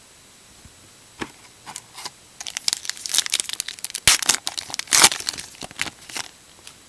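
Plastic wrapper of a Topps Gypsy Queen baseball card pack crinkling and tearing as it is opened by hand. A few light crackles come first, then about four seconds of dense crackling.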